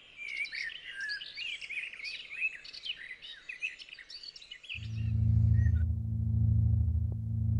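Songbirds chirping and twittering in quick, varied phrases. About two-thirds of the way in, a deep, steady drone of ambient music starts and becomes the loudest sound. The birdsong stops shortly after.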